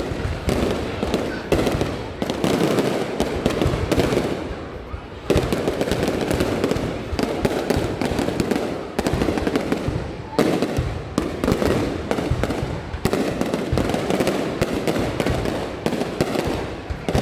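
Fireworks display going off in quick succession: a dense, continuous run of bangs and crackles, easing briefly about four seconds in before a sharp bang picks it up again.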